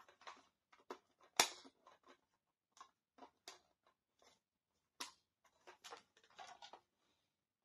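Hard plastic toy playset case being handled, opened and folded: irregular plastic clicks, snaps and taps with light handling noise between them. The sharpest snap comes about a second and a half in, another near five seconds.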